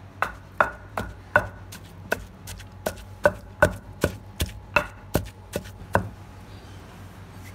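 A pestle pounding mint-garlic chutney in a stone mortar: about fifteen sharp strokes, two to three a second, each ringing briefly, stopping about six seconds in.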